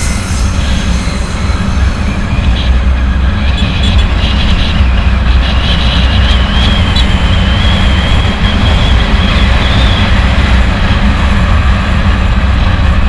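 Wind rushing over a GoPro microphone on a moving Yamaha Mio scooter, with the engine running underneath as a steady heavy rumble. A thin high whine wavers in for a few seconds in the middle.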